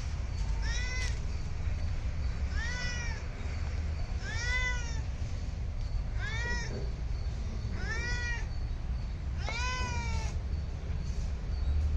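A domestic cat meowing six times, about once every second and a half or so; each meow is short and rises then falls in pitch. A steady low rumble runs underneath.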